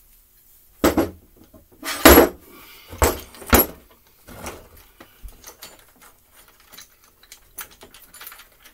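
Handling noise from a McCulloch Mini Mac 30 chainsaw being taken apart on a workbench: four loud knocks and clatters in the first four seconds, then lighter clicks and rattles as the saw is turned and worked on by hand.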